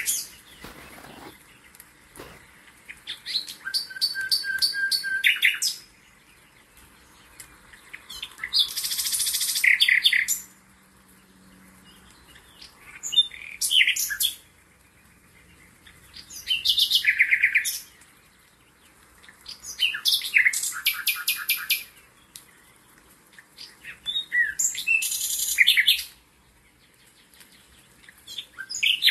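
A songbird singing: about seven short phrases of fast trills and whistled notes, each lasting one to three seconds, with pauses of a couple of seconds between them.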